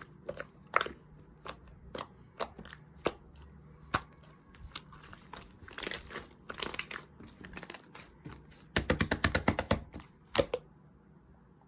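Close handling sounds: scattered sharp clicks and taps with some crinkling, then a fast run of about a dozen taps near the end, before it goes quiet.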